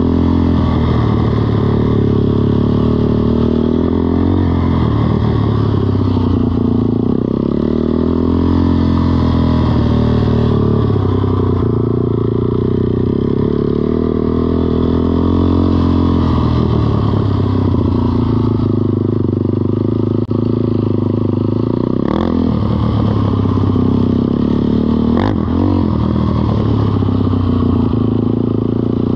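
Kymco Mongoose 90 mini ATV's small single-cylinder four-stroke engine running, its pitch falling and rising a few times with the throttle. Two sharp knocks come in the last third.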